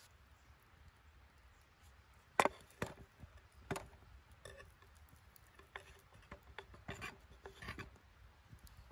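Kitchen knife cutting bacon on a wooden cutting board. A few sharp taps of the blade on the board come about two and a half to four seconds in, followed by lighter clicks and scraping.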